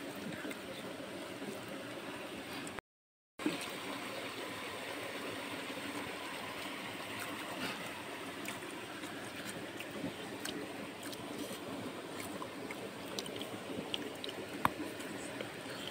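Steady flowing water, like a nearby stream, with scattered faint clicks from hands mixing and picking up rice and boiled eggs. The sound cuts out completely for about half a second, about three seconds in.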